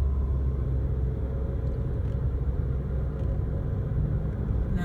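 Car interior driving noise: a steady low rumble of engine and tyres on the road.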